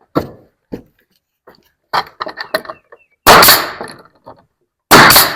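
Pneumatic Bostitch coil siding nail gun firing twice, about a second and a half apart, each shot a loud sharp bang with a burst of air, driving 1.25-inch nails into siding boards. Several lighter knocks and clatter come before the shots.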